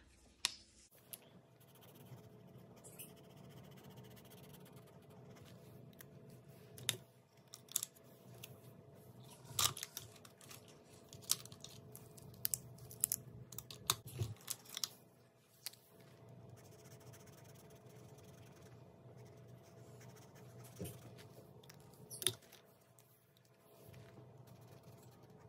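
Sharpie marker scratching on a paper tracker card as it is coloured in, with scattered clicks from markers being picked up, handled and set down.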